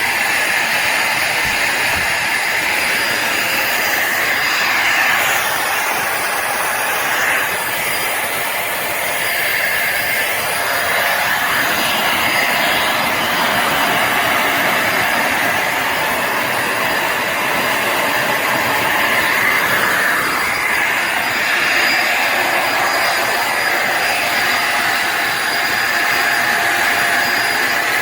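Bissell Symphony Pet vacuum and steam mop running steadily, its motor giving a continuous rushing drone with a faint high whine.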